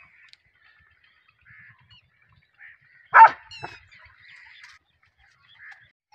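Two short, loud animal calls about three seconds in, the first much the louder, over faint, scattered chirping of small birds.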